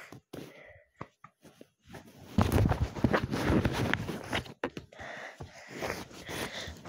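A dog scuffling on a bed right against the phone, with bedding and the phone rustling. A few clicks and knocks at first, then loud scuffling from about two seconds in, easing off near the end.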